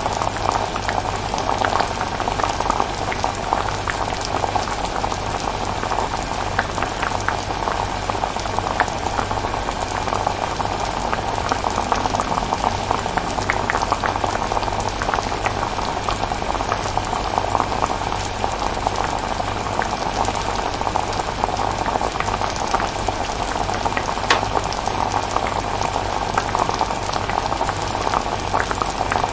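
Chilli cooking on the heat, bubbling with many small irregular pops, over a steady low hum.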